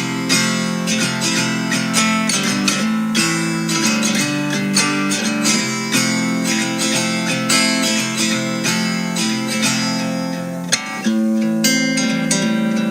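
Background music led by strummed and plucked acoustic guitar, with a steady pulse of notes.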